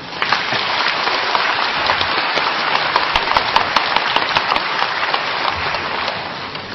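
Audience applauding: a dense crackle of many hands clapping that starts suddenly and tails off near the end.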